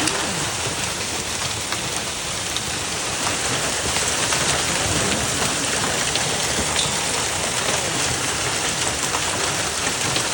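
Hail and heavy rain pelting down in a steady, dense hiss, with scattered sharp ticks of hailstones striking.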